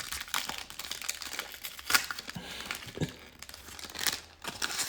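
Foil wrapper of a trading-card pack crinkling and crackling while being torn and pulled off the cards, with a few sharper crinkles along the way.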